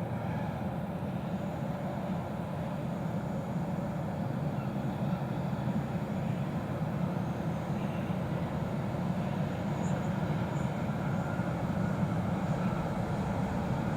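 Steady low rumble of a train running past on the line, slowly getting louder.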